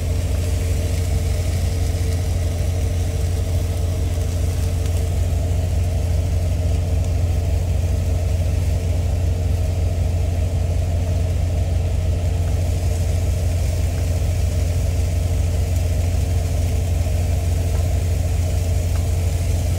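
Semi-truck's diesel engine idling steadily, a constant low rumble heard inside the sleeper cab.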